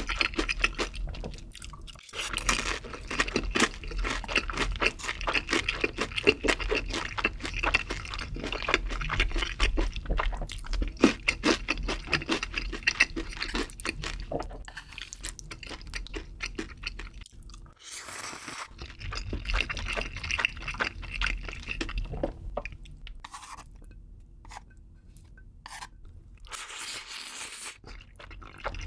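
Close-miked eating sounds: chewing and crunching of sauced fried chicken and black bean sauce noodles, with wet mouth clicks, and a couple of short slurps about two-thirds of the way in and near the end.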